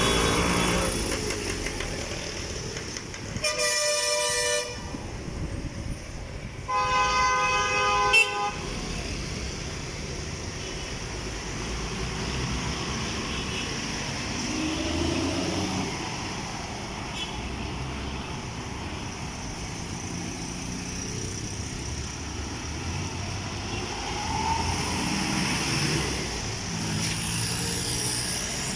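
Busy street traffic with vehicles running and passing, and two vehicle horn blasts, the first a little over three seconds in and a longer one about seven seconds in.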